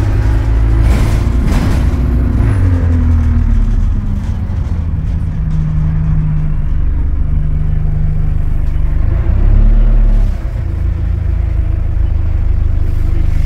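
Diesel engine of an Alexander Dennis Enviro200 single-deck bus heard from inside the passenger cabin while driving. The engine note falls in pitch over the first few seconds, then runs steady, with a brief surge of low rumble about ten seconds in that drops away sharply.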